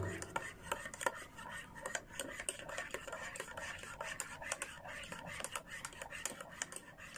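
A metal teaspoon stirring coffee in a ceramic cup, with many quick, irregular clinks and scrapes against the cup's sides.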